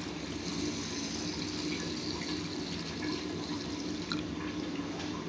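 Water poured steadily from a metal pan into a stainless steel pot of washed basmati rice, filling it.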